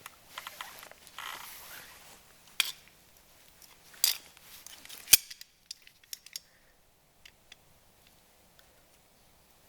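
Tools and small metal brake parts being handled: scattered sharp metallic clicks and clinks, the loudest about five seconds in, followed by a few light ticks.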